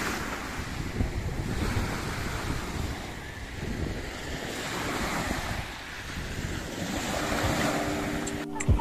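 Small waves breaking and washing up a pebble beach, the surf swelling and ebbing every few seconds, with wind rumbling on the microphone.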